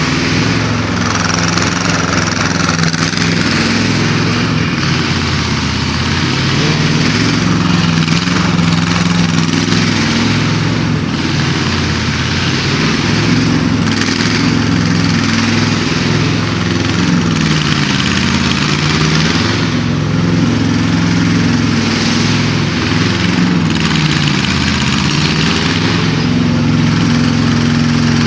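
Engine of an 800 kg mini excavator running steadily, its pitch dipping and rising every few seconds as the load changes, with a hiss that swells and fades.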